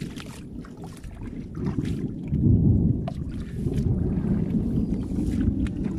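Shallow floodwater splashing and sloshing as a man wades and hauls a fishing net through it by hand, with a low rumble underneath; the water noise is loudest a little past two seconds in.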